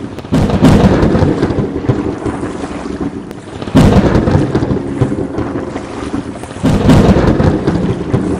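Thunderstorm: steady rain with three loud thunderclaps, each breaking suddenly and then rumbling away, about three seconds apart.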